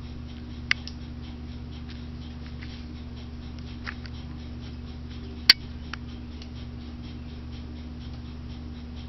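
A few small sharp clicks of a metal eyelash curler being handled and clamped on the lashes, the sharpest about five and a half seconds in, over a steady low hum.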